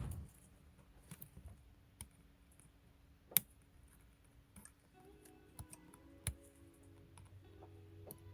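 Sparse sharp clicks and taps of small hand tools working on a smartphone during a screen repair, with one louder click about three and a half seconds in.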